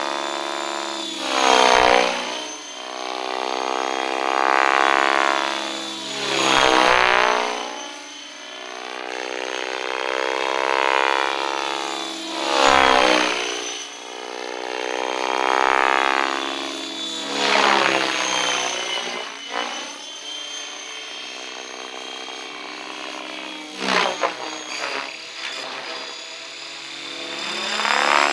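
Electric radio-controlled helicopter (Miniature Aircraft ION-X on a 14S pack) flying hard aerobatics: rotor blades whooshing over a high steady motor and gear whine. Its pitch and loudness swing up and down on fast passes and manoeuvres, loudest about every five or six seconds.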